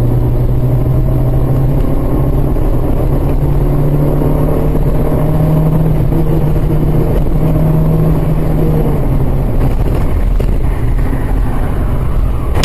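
A car's engine and tyre noise heard from inside the cabin while driving at moderate speed: a steady low hum over road rumble, rising slightly in pitch over the first several seconds and fading away near the end.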